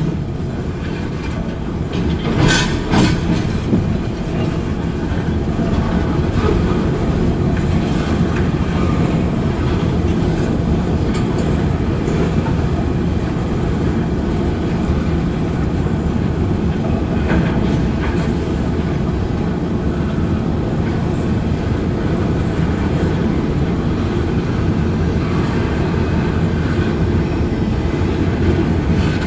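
Freight cars of a manifest train rolling past at speed: a steady rumble of steel wheels on rail with clickety-clack over the joints. A couple of sharp clanks come about three seconds in.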